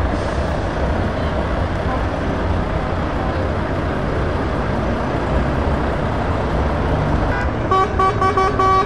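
Truck diesel engine running steadily as a Volvo FH tractor unit pulls slowly away. Near the end a truck horn sounds a quick run of short toots, about five a second, louder than the engine.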